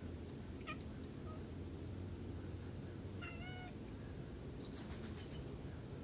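Black-billed magpie calling: a faint short note about a second in, then one nasal, mewing call about three seconds in, and a quick run of dry clicking chatter near the end. A steady low background rumble lies underneath.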